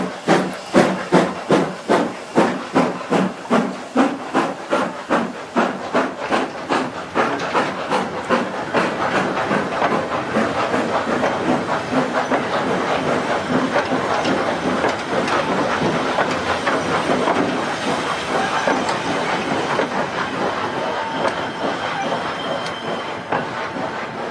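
Austerity 0-6-0ST saddle tank steam locomotive working hard up a gradient, its barking exhaust beating about three times a second and fading over the first several seconds as it passes. It is followed by the steady rumble and wheel clatter of a long train of steel mineral wagons rolling by.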